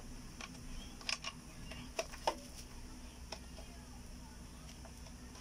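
A handful of short, sharp clicks and taps of hard plastic being handled and worked with a hand tool, loudest about a second in and again about two seconds in, over a low steady hum.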